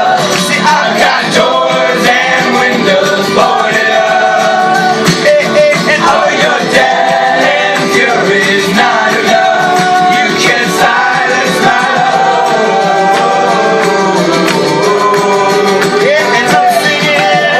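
Live band performing a song, with singing over instruments playing held chords.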